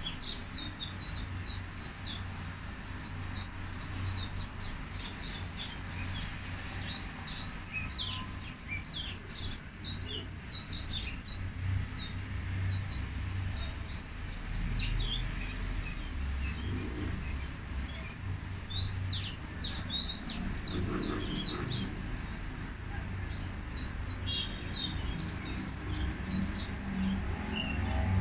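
White-eye singing in its cage: a long run of rapid, thin, high twittering notes, sparser for a few seconds about halfway through. A steady low rumble lies underneath.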